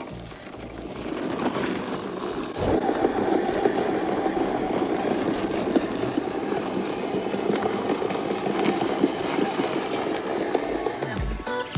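WPL C-34 1/16-scale RC crawler driving off-road: its electric motor and gearbox give a steady whir that gets louder about two and a half seconds in, with scattered clicks and rattles. Music comes in near the end.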